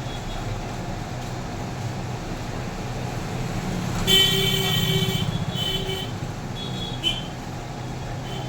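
A vehicle horn honks loudly for about a second, about four seconds in, followed by a couple of shorter, fainter toots, over a steady low hum.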